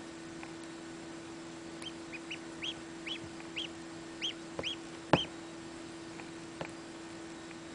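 Newly hatched Aylesbury duckling peeping: a run of about a dozen short, high peeps in the middle stretch, over a steady low hum. A sharp click, the loudest sound, comes a little after five seconds in.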